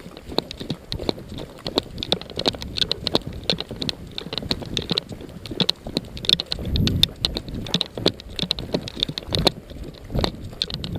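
Footsteps of a player moving over rough ground, with gear knocking and rattling, heard close from a body-worn camera: a string of irregular short knocks and clicks.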